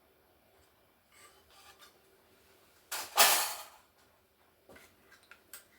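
Laptop parts being handled on a work surface: light knocks and rustling, then a loud clatter lasting under a second about three seconds in, followed by a few small clicks.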